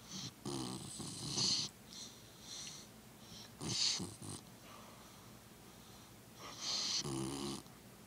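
Beagle snoring quite loud in deep sleep: three loud snores about three seconds apart, with softer snoring breaths between them.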